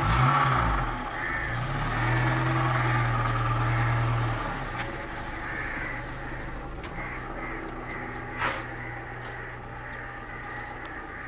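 A car passes close with its engine running, holding a steady hum for about four seconds and then fading to a faint hum. Crows caw in the background, and there is a single sharp click near the end.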